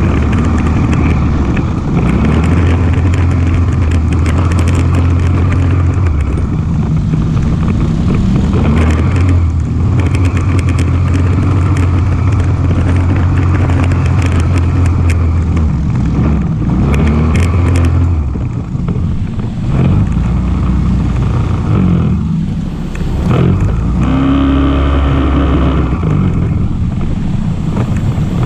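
ATV engine running while riding, its pitch rising and falling with the throttle. The engine eases off briefly twice in the later part.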